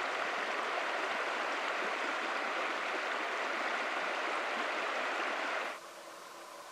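Shallow mountain creek rushing over rocks in riffles: a steady rush of water that cuts off suddenly near the end, leaving a much quieter background.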